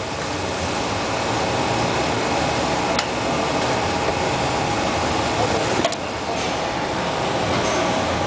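Generation 5 Royal Master CNC centerless grinder running with its wire feeder: a steady mechanical hum, with a sharp click about three seconds in and another about six seconds in.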